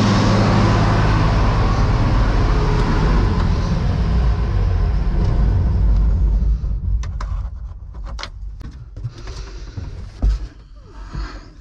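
Steady low engine hum, loud for about the first six seconds and then much fainter, followed by scattered clicks and knocks of hands on a combine harvester's cab controls and fittings, with one loud thump about ten seconds in.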